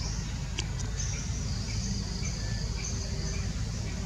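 Steady high-pitched chorus of insects buzzing in the surrounding forest over a low steady rumble, with a couple of sharp clicks a little over half a second in.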